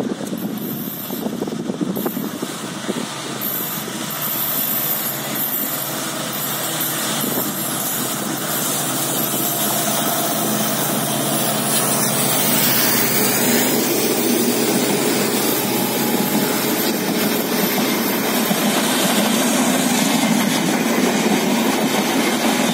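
An Indian Railways WDG-4D diesel locomotive, an EMD two-stroke, hauls a passenger express past at speed. It grows louder as it approaches, the locomotive goes by close about halfway through, and then the coaches roll past with a steady wheel-on-rail rumble.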